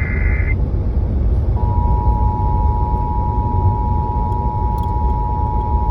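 Emergency Alert System broadcast on FM radio: the tail of a SAME header data burst, a warbling pair of high tones that stops about half a second in, then after a brief pause the EAS two-tone attention signal, a steady dual tone near 853 and 960 Hz. A steady low rumble runs underneath throughout.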